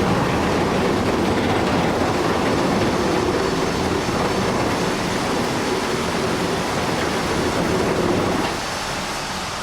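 Heavy machinery at work, most likely bulldozers straining in a tug of war: a loud, dense, steady mechanical rumble of engines and tracks that eases a little near the end.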